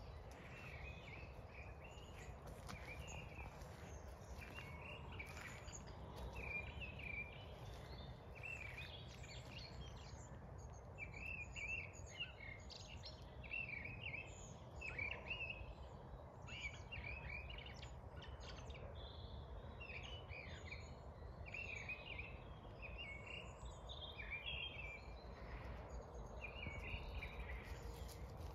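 Birds singing, a steady run of short chirping phrases, over a low, steady rumble of outdoor background noise.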